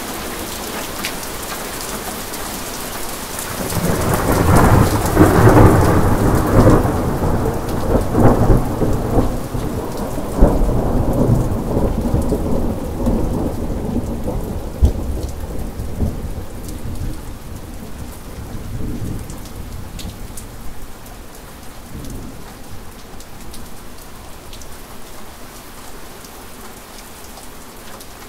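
Steady rain falling, with a long peal of thunder that breaks in about four seconds in. The thunder peaks with several sharp cracks and rumbles away over the next fifteen seconds or so, while the rain keeps falling.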